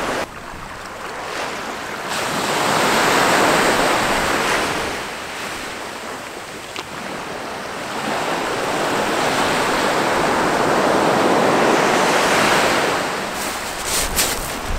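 Small waves breaking on a sand-and-shingle beach and washing back, the surf swelling twice. A few light clicks and some wind on the microphone near the end.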